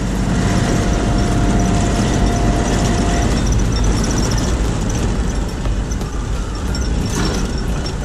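Heavy sawmill machinery running loudly and steadily with a deep rumble. A thin steady whine stops about three seconds in.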